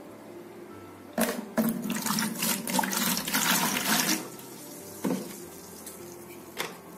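Liquid poured into a plastic bucket for a bleach-and-water mix, a splashing rush lasting about three seconds. Two short knocks follow near the end.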